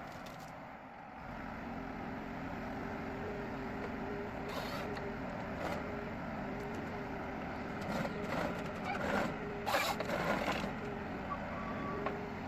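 Forestry tractor with a crane-mounted harvester head at work: the engine and hydraulics run steadily with a faint whine that keeps cutting in and out, and a cluster of sharp cracks and snaps comes about eight to eleven seconds in as the head handles a tree.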